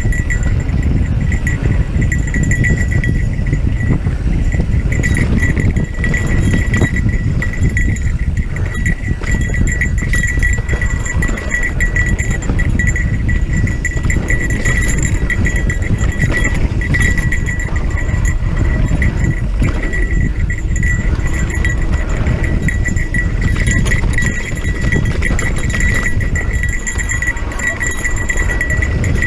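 Electric mountain bike riding over a rough dirt trail: a steady rumble of tyres and wind on the microphone, with constant rattling and an unbroken high-pitched buzz from the bike.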